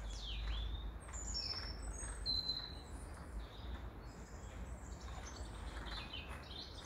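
Common buzzard calling: a high mewing cry that slides downward near the start, followed by several short, high chirps.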